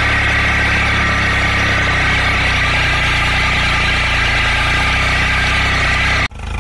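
Swaraj 744 tractor's three-cylinder diesel engine running steadily, heard close to its upright exhaust. The sound breaks off suddenly near the end and a quieter engine sound follows.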